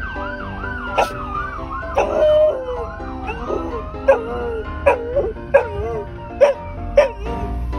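An emergency-vehicle siren wails, then warbles rapidly up and down. A dog answers it with a run of short howls that rise and fall in pitch, about one a second and more often toward the end. Background music plays underneath.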